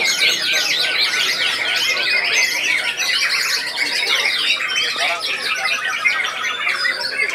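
White-rumped shamas (murai batu) singing: a dense, unbroken tangle of rapid, sharp whistled phrases from several caged birds at once.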